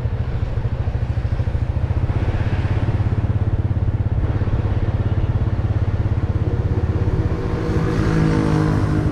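Motorbike engine running steadily while riding, a low pulsing drone, its engine note growing stronger and clearer about seven and a half seconds in.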